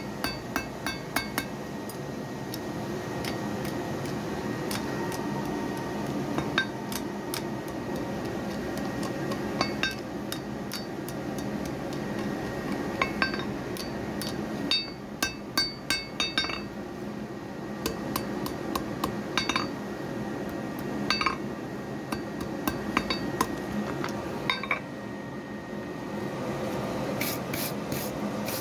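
Hand hammer striking hot iron on an anvil, with sharp ringing metallic blows in short runs of a few strikes and pauses of a second or more between them. A steady low rush runs underneath.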